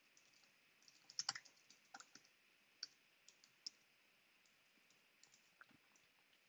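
Faint computer keyboard typing: a quick run of key clicks about a second in, then scattered single key taps.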